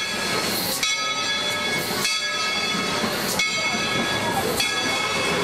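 Steam train at a station hissing steam, with a gush of steam about every second and a quarter over a cluster of high, steady ringing tones.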